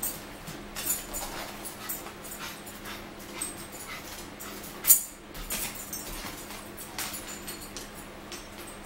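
Close-up eating sounds from people eating french fries: a run of short, wet mouth clicks and lip smacks, the sharpest about five seconds in, over a steady low hum.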